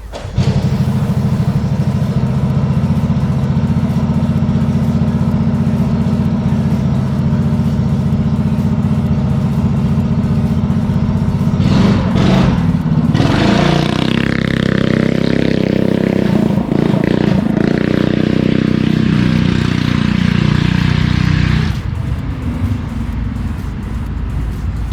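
Go-kart's small gas engine running under throttle, steady for about twelve seconds, then rising and falling in pitch as it revs before easing off near the end.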